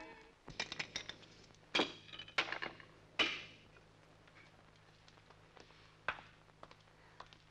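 Dice rattled in a small dice cup and cast onto a marble tabletop: a quick run of hard clicks and clacks through the first three seconds, three of them louder with a short ring, then a few faint ticks.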